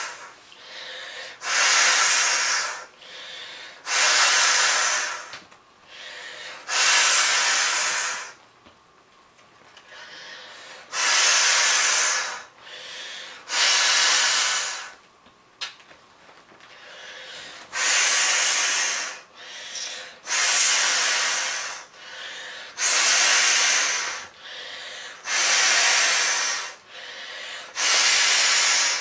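Breaths blown by mouth into the valve of a large plastic beach ball, inflating it: a string of long hissing blows of about a second each, with quieter inhalations and short pauses between, and two longer breaks.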